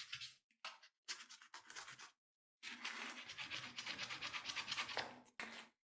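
Scratchy rubbing as old thermal paste is wiped off a laptop's processor chip: a few short strokes, then about three seconds of quick back-and-forth rubbing.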